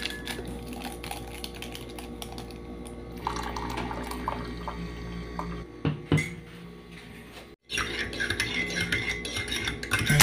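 Metal spoon stirring coffee in a ceramic mug, clinking many times against the inside of the mug.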